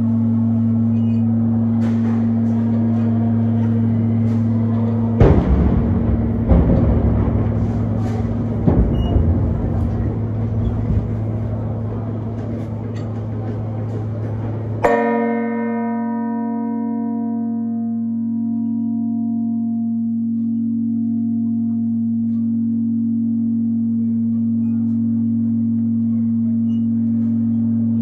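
Six church bells ringing a festive peal (mota) marking the close of the feast: rapid, dense clanging that stops about halfway through on a last stroke whose ringing tones fade over several seconds. A steady low hum runs underneath.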